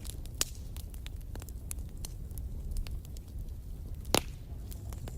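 Campfire burning: a steady low rumble with scattered crackles and pops, the sharpest pop about four seconds in.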